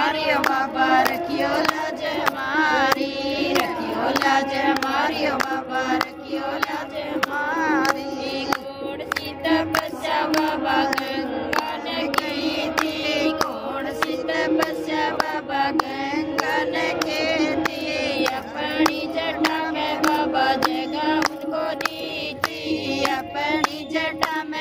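Two women singing a Hindi devotional bhajan to Shiva together, clapping their hands to a steady beat.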